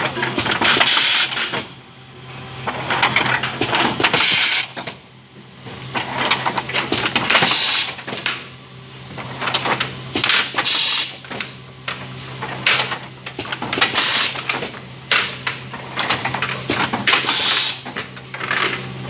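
Perfume filling and crimping machine running: a steady hum with clatter and repeated short hissing bursts every few seconds.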